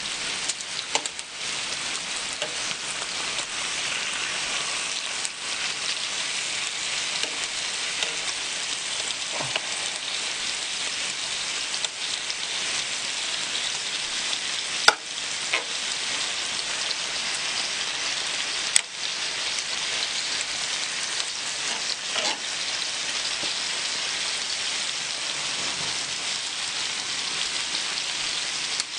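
Pork belly, pork neck and marinated pork and duck sizzling on a large hot griddle, a steady frying hiss. A few sharp clicks of metal tongs on the griddle cut through it, the loudest about halfway through and again a few seconds later.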